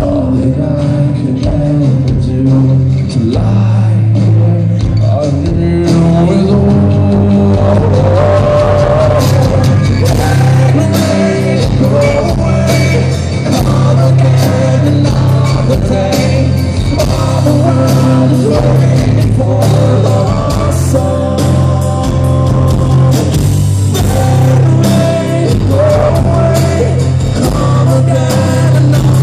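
Live rock band playing an acoustic arrangement: strummed acoustic guitars, bass and drums under a sung lead vocal. The drums and cymbals pick up about nine seconds in.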